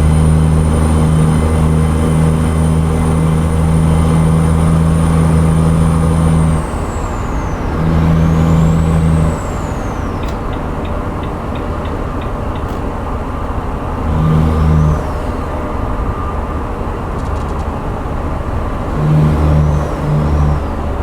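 Truck running along the highway, heard from inside the cab: steady engine and road noise. A strong low drone drops away about six seconds in and comes back three times for a second or two.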